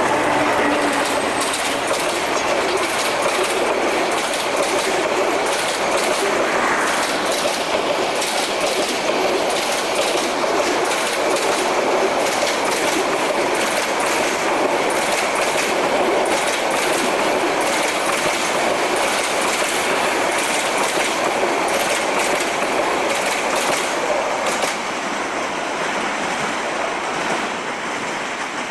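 Meter-gauge intercity passenger train's PT INKA coaches rolling past close at speed, wheels clacking steadily over rail joints. The sound drops about 25 seconds in as the last coach goes by and the train draws away.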